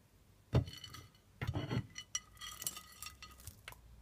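Kitchen dishware and utensils clinking and knocking: a soft knock about half a second in, another a second later, then a run of light, briefly ringing clinks.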